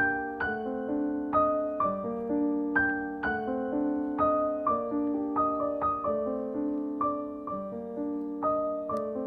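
Soft solo piano music, with single notes and chords struck about twice a second and left to ring.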